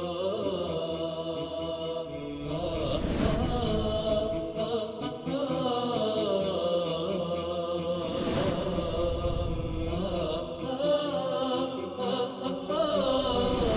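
Theme music: a chanted vocal song with the melody carried by voices.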